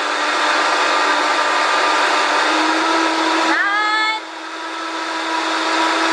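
Vitamix Professional Series 500 blender with a 2-peak-horsepower motor, spinning half a jar of water at high speed: a very loud, steady whirring. Just past halfway a brief rising whine is heard, then the level drops and climbs back as the speed dial is turned.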